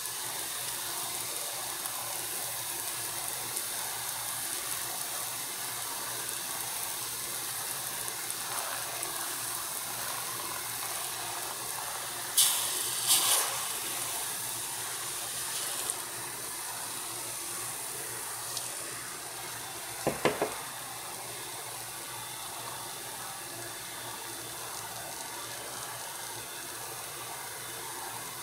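Acid eating into aluminium, the liquid fizzing with a steady faint hiss as the metal dissolves. Two brief louder hisses come about twelve seconds in, and three quick small taps about twenty seconds in.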